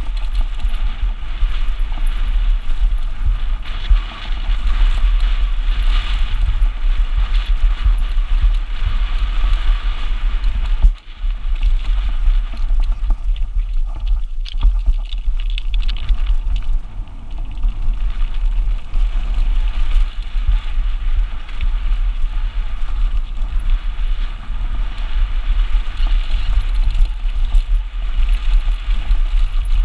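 Mountain bike running fast down a rough, stony downhill trail: a continuous clatter of tyres on loose rocks and the bike rattling, over heavy wind buffeting on the camera microphone.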